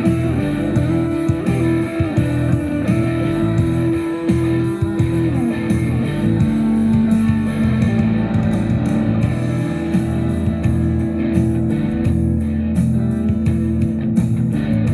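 Guitar-led background music with a steady beat.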